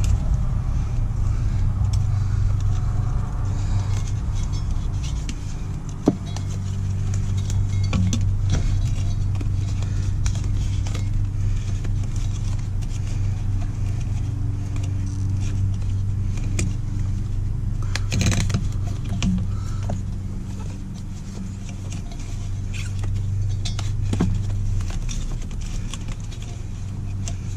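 A steady low hum, with a few scattered clicks and knocks as a removed heater blower motor and its plastic squirrel-cage fan are handled.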